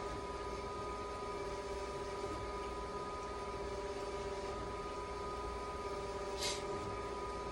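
Steady machine hum with several constant tones over a low noise, and a short hiss about six and a half seconds in.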